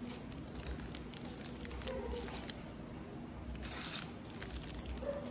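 Foil NBA Hoops trading card packs crinkling as they are handled and shuffled by hand, in irregular soft rustles that are loudest about four seconds in.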